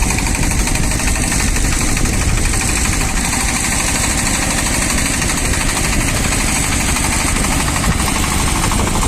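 Shifeng SF-240 mini tractor's single-cylinder diesel engine running steadily and loudly, with a fast, even beat.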